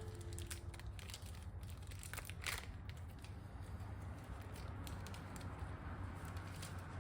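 Scattered crinkling and clicking handling noises, with a sharper click about two and a half seconds in, over a steady low hum.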